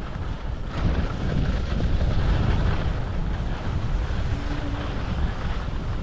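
Wind buffeting the microphone of a camera on a moving skier, a gusty low rumble, with the hiss of skis sliding over groomed snow.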